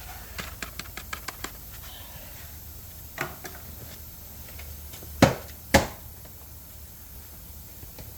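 Hand-handling noises while working on the engine: a quick run of light clicks, a single knock, then two sharp knocks about half a second apart.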